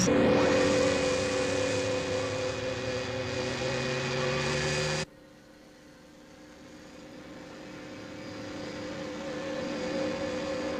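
Sci-fi sound effect of a space battleship's auxiliary engines running as the ship moves ahead dead slow: a steady hum with several held tones. It cuts off suddenly about five seconds in, and a quieter hum then slowly swells.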